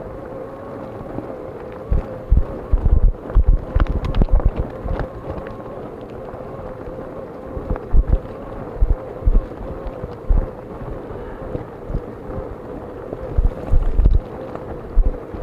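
Wind buffeting the microphone in irregular gusts, over the steady, slightly wavering hum of fat-bike tyres rolling.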